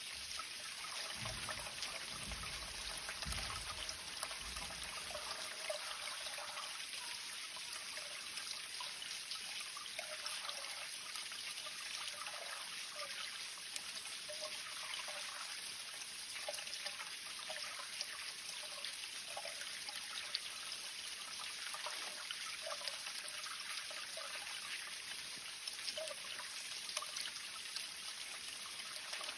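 Spring water trickling and splashing steadily, with small droplet splashes throughout. A low rumble sounds in the first few seconds.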